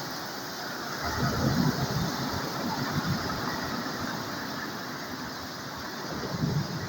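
Sea waves breaking and washing on the shore: a steady rush of surf that swells louder about a second in and again near the end.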